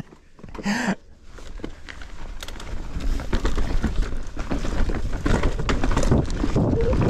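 Bicycle getting under way over rough ground: wind on the microphone, tyre noise and rattling knocks, growing louder over the first few seconds.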